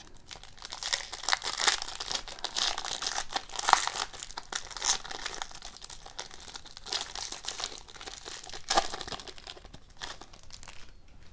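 Foil wrapper of a hockey trading-card pack crinkling and tearing as it is pulled open by hand: a dense run of crackles, with a few louder ones, fading near the end.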